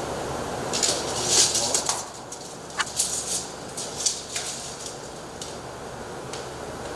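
Rustling and scraping as the storm door frame is handled and positioned, followed by a few light clicks and knocks.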